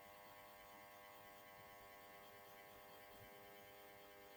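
Near silence: a faint steady electrical hum and hiss of the recording's background.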